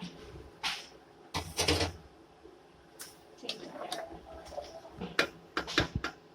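Kitchen handling noises: a string of short knocks, rattles and scrapes from containers and utensils being moved about.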